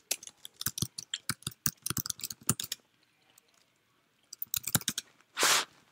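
Typing on a computer keyboard: quick, irregular key clicks for about three seconds, a pause, then a few more clicks, followed near the end by a short rush of breathy noise.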